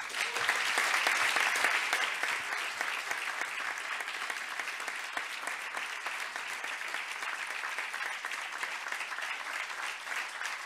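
Audience applauding: the clapping starts all at once, is loudest for the first couple of seconds, then settles into steady applause.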